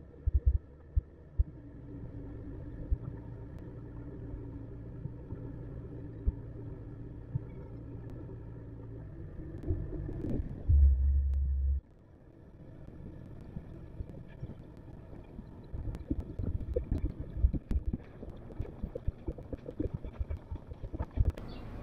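Boat engine running at slow harbour speed, a steady hum. A loud low buffet hits about eleven seconds in, and frequent short low thumps come in the last several seconds.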